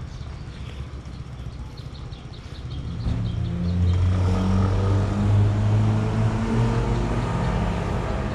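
Low wind rumble on the action camera with faint rapid ticking. About three seconds in, a motor vehicle's engine comes up loud and close and keeps running with a steady low hum.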